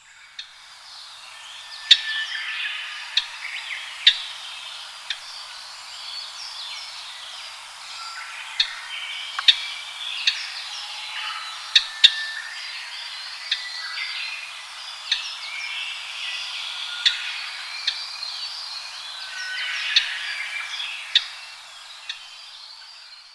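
Japanese grosbeaks calling: a dense, continuous chatter of short chirps and whistles, with sharp, loud notes breaking through irregularly about once a second.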